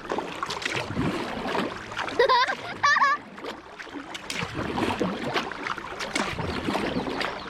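Kayak paddling: paddle blades splashing and water dripping and trickling. Two short high voice sounds, likely a child's, come about two and three seconds in and are the loudest moments.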